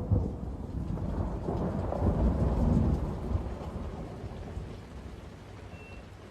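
Low rumble of thunder, swelling about two seconds in and dying away.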